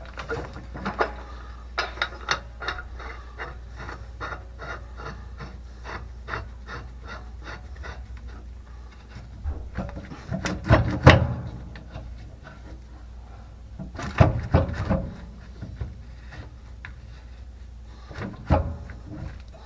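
Hands working metal pipework and fittings into place: a run of light clicks and scraping, with louder clattering knocks about ten seconds in and again about fourteen seconds in.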